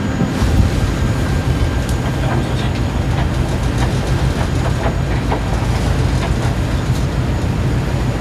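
Steady deep rumble of a ship's engines running under way, with a few faint clicks scattered through it.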